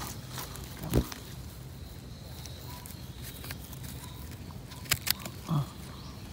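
Quiet outdoor background with scattered short knocks and clicks, the loudest about a second in and two more about five seconds in, from someone moving about on foot.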